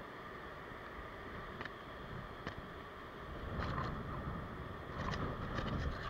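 Sea surf washing and breaking around a rock ledge, with wind on the microphone. The wash swells louder about halfway through and again near the end, with a few light clicks.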